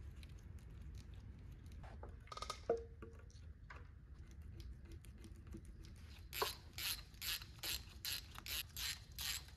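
Hand ratchet wrench clicking in quick, regular back-and-forth strokes, about two to three a second, starting a little past halfway, as bolts are run in on the front of an engine block. Before it there are light clinks of parts being handled and one sharp metallic clank.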